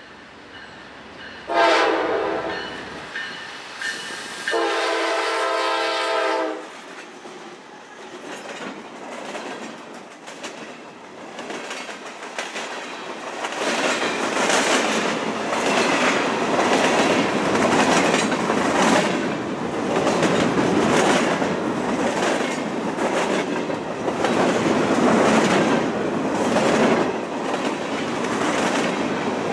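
Norfolk Southern freight locomotive sounding its horn in two blasts, a short one and then a longer one, as it approaches. The train then passes close by with a growing rumble of open-top gondola cars and a steady clickety-clack of wheels over the rail joints.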